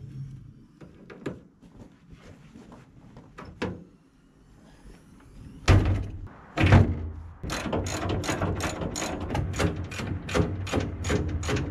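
Two heavy thumps as a skid steer's tilt-up cab is lowered and settles onto the frame, then a hand ratchet clicking quickly, about four clicks a second, as a cab mounting bolt is run down.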